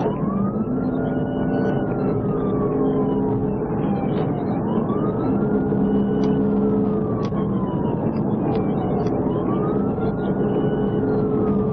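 Police car siren wailing, rising quickly and falling slowly about every four and a half seconds, three times, over steady road noise from the pursuing patrol car.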